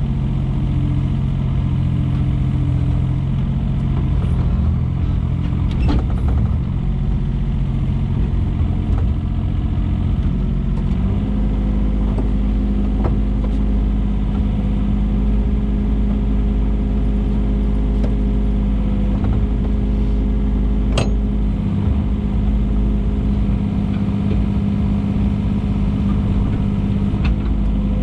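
Takeuchi TB125 mini excavator's diesel engine running steadily. The engine speed steps up to a higher steady pitch about eleven seconds in. A few sharp knocks sound over it.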